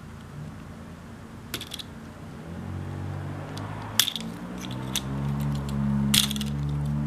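Small toy drone's motors starting up: a low hum of several close tones that slowly shift, beginning about two and a half seconds in and growing louder. Sharp plastic clicks come from handling the drone.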